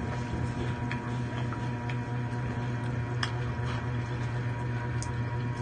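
Scattered small clicks and cracks from seafood being pulled apart and eaten by hand, over a steady low background hum.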